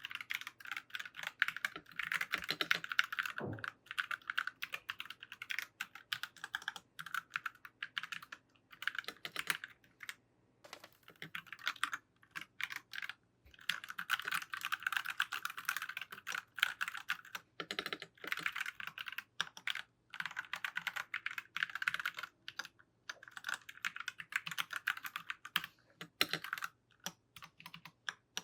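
Typing on a mechanical keyboard fitted with freshly swapped keycaps: rapid runs of key clacks broken by short pauses.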